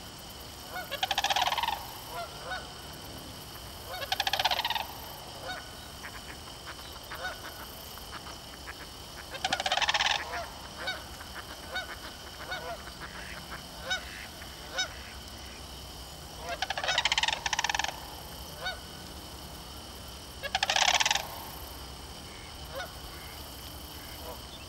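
Sandhill cranes calling: five rolling, trumpeting bursts of about a second each, with short softer calls in between.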